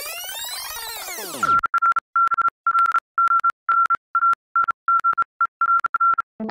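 An electronic sound effect of many tones swooping up and falling away, ending about a second and a half in. Then a steady electronic beep at a single high pitch, switched on and off in about a dozen beeps of uneven length. Electric piano music starts at the very end.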